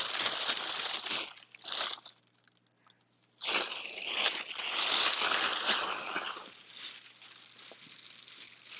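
Crinkling and rustling of handled material in spells: about a second of it, a short burst, a near-silent gap, then a longer spell of about three seconds that fades away.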